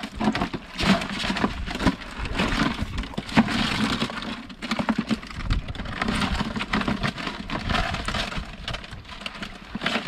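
A wet nylon mesh net trap being pulled open and handled against rocks: continuous irregular crackling rustles and small clicks.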